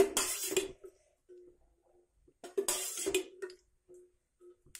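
Steel cooking vessels clinking and clattering while cooking oil is poured into a kadai. Two short bursts of clatter come, one at the start and one about two and a half seconds in, over a faint steady hum.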